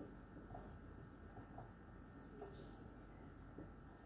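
Faint strokes of a marker writing on a whiteboard, over a low steady hum.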